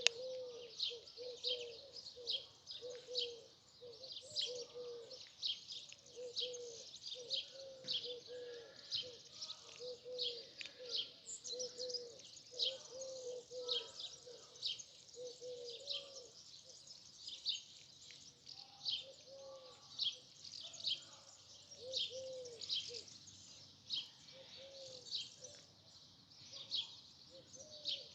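Birds chirping: a steady run of short, high chirps about two a second, over a lower, rounder note that repeats about once or twice a second.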